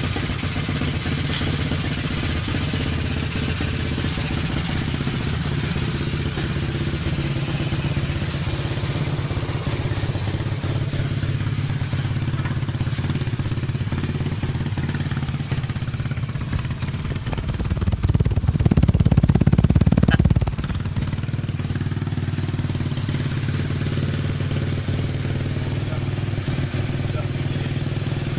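Honda EX5's single-cylinder four-stroke engine idling steadily, with one brief rev about eighteen seconds in before dropping back to idle.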